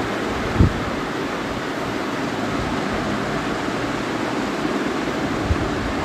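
Steady rushing background noise, with a soft low thump just over half a second in and another near the end.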